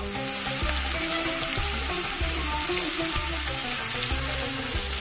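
Spice-rubbed lamb shanks searing in hot olive oil in a cast iron tagine base on high heat: a steady sizzle that starts at once. Quiet background music with a low beat plays underneath.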